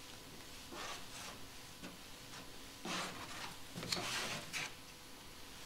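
Filler spreader being dragged through wet body filler across a steel van door panel: a few short scraping strokes, the loudest about four seconds in.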